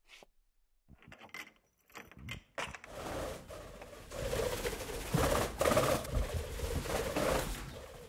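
Pigeons cooing in repeated pulses over a rustling hiss, beginning about three seconds in, after a few faint knocks.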